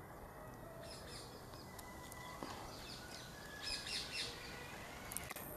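Birds chirping faintly, with a few short calls about a second in and a cluster around four seconds in.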